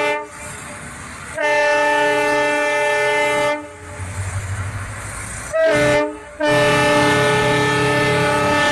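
Indian Railways diesel locomotive sounding its air horn as it approaches slowly: a short toot, a long blast, another short toot, then a second long blast, with the engine's low rumble heard between the blasts.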